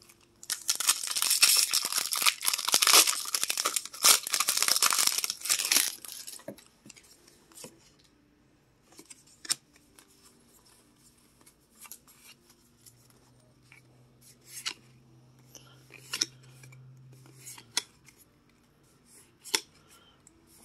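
A foil Pokémon booster pack wrapper is torn open and crinkled for about five seconds. Then come scattered soft clicks and flicks of the cards being handled.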